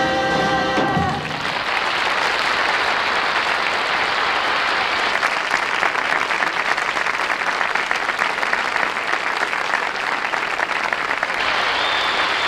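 A song ends on a held final chord about a second in, and an audience applauds steadily for the rest of the time.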